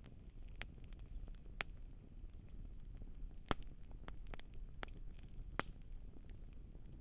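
Wood campfire crackling: irregular sharp pops, roughly one a second, the loudest about three and a half seconds in, over a low steady rumble.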